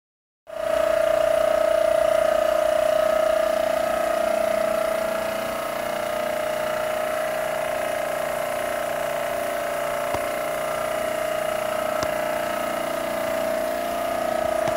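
Electrostatic paint-spraying rig running: a steady whine with a hiss of spray over it.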